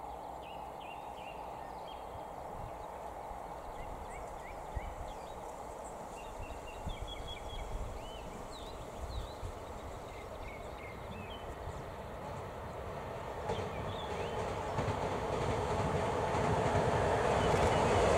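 JR East E001 'Train Suite Shiki-shima' cruise train approaching along the track, a low rumble that grows steadily louder over the last several seconds as the train nears. Short bird chirps come and go in the first half.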